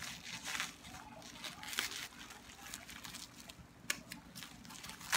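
Plastic wrapping crinkling and rustling in irregular flurries as it is handled and unwrapped, with a sharp click about four seconds in and another near the end.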